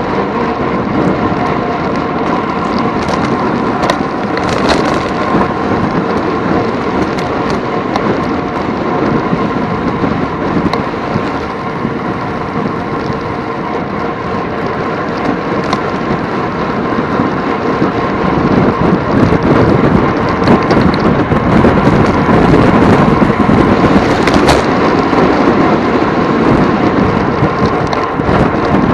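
Loud, steady rushing rumble of wind buffeting the microphone, growing louder about two-thirds of the way through, with a few sharp ticks.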